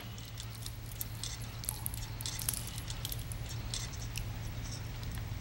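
Light metallic jingling and clinking of a pocket watch's chain, in scattered short clinks, over a low steady hum.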